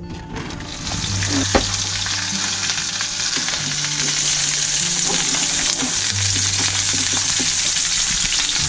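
Yellow snapper frying in hot oil: a steady sizzle that starts about a second in.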